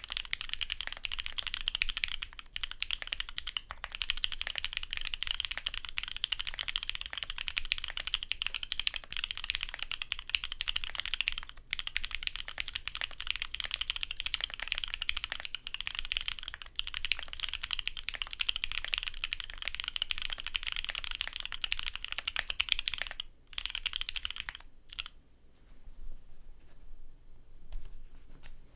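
Custom gasket-mount Neo 70 keyboard with an FR4 plate and Cherry Polished Nixie switches lubed with Krytox 205g0, typed on fast and continuously. Near the end the keystrokes thin out to a few scattered presses with short pauses.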